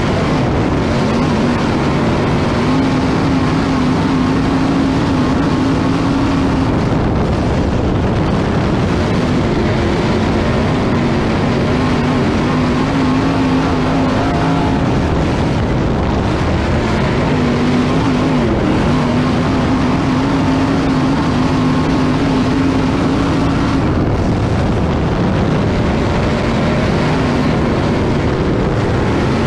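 Dirt late model race car's V8 engine at racing speed, heard from inside the cockpit: a loud, steady engine note that climbs and holds on the straights and dips every several seconds as the car slows into the corners, over a rushing noise.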